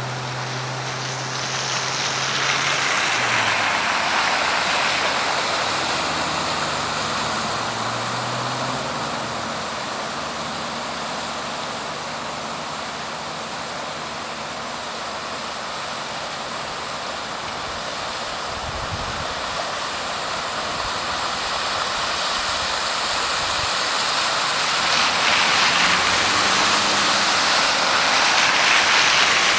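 Steady rush of floodwater in the normally dry Todd River, swelling louder a few seconds in and again near the end, with the low hum of vehicle engines at times.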